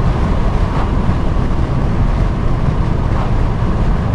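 In-cabin sound of a Subaru WRX STI cruising at steady speed: the turbocharged flat-four engine running under even throttle with tyre and road noise, and no rev changes.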